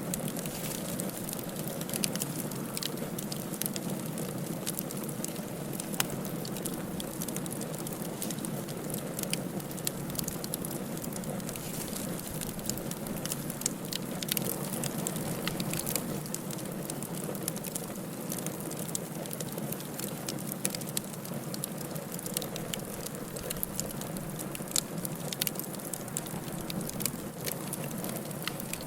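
Firewood burning in a fireplace: a steady hiss of flame with frequent, irregular crackles and pops of the wood, a few of them sharper and louder.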